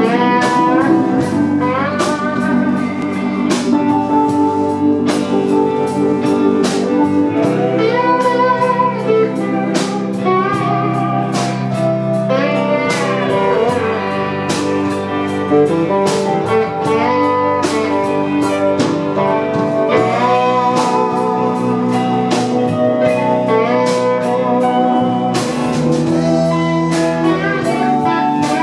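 Live electric blues band playing an instrumental passage: an electric guitar lead with string bends over bass, keyboards and a drum kit.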